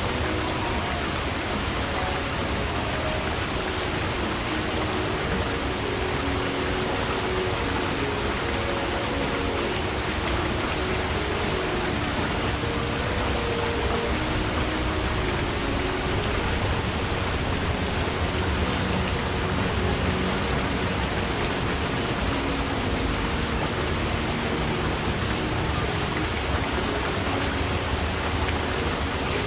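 Forest stream flowing: a steady rush of water with low gurgling notes under it.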